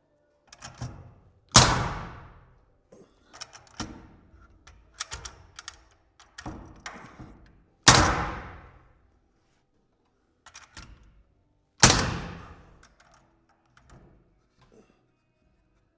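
Wall-framing work: three loud, sharp bangs, about six and then four seconds apart, each ringing out for about a second, with lighter knocks and clatter between them.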